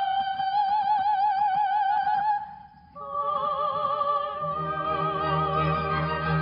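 Soprano and mezzo-soprano singing an operatic duet with orchestra: a long held note with vibrato, a brief break about two and a half seconds in, then a new, higher held note. Low strings come in under the voices near the end.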